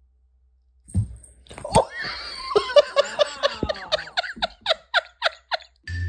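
A person laughing in a quick run of short, falling 'ha' sounds, about four a second, after two sharp knocks about a second in.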